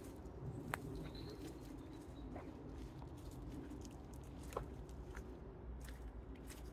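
Faint woodland background with a low rumble and a few scattered sharp clicks, plus a brief faint high chirp about a second in.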